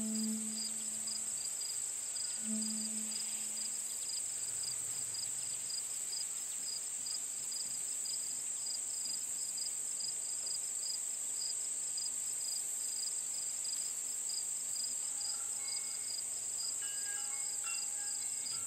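Crickets chirping: a steady high trill with rapid, evenly pulsed chirps. Two low held musical notes sound in the first few seconds, and a few short higher notes come near the end.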